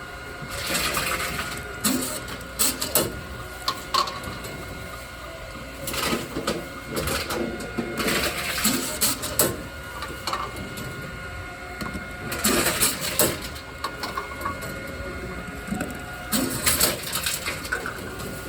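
Tomra T-53 reverse vending machine taking in plastic bottles: about six bursts of rattling and crunching a few seconds apart as each bottle is turned, read and crushed, over a steady faint machine hum.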